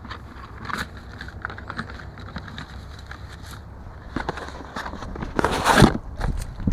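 Handling noise: scattered small clicks and rustles over a steady low hum, with a louder rustling scrape about five and a half seconds in.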